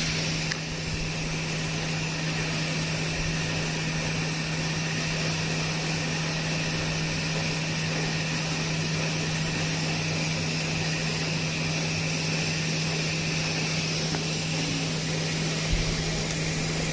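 Orbital welding machine running: a steady low hum under a constant hiss, with a slight change in the hiss about fourteen seconds in.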